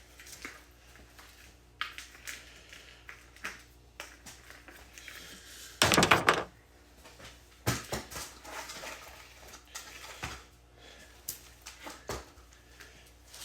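Wire being handled and pulled out for cutting: scattered rustling and knocks, with one louder rustling burst about six seconds in.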